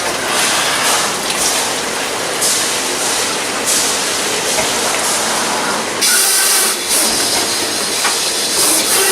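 Loud, steady hissing noise that shifts in strength a few times, with no clear tone or rhythm.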